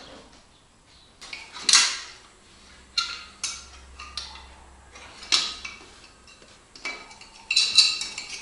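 Metal clinks and knocks as a thin metal bicycle mudguard is handled and tried against the front fork of a homemade moped: several separate sharp knocks, then a quicker rattle near the end.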